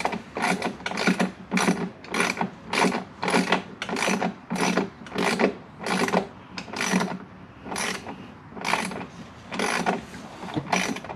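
Hand ratchet clicking in steady back-and-forth strokes, about two a second, tightening a bolt.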